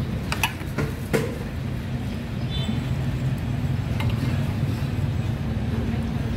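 Ceramic bowl clinking down onto a china plate, three sharp clinks in the first second, then a single knock of the metal ladle against the bowl about four seconds in as broth is ladled in, over a steady low hum.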